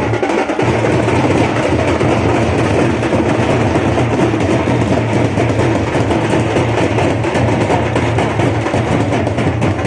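Loud music carried by heavy drumming, dense and unbroken.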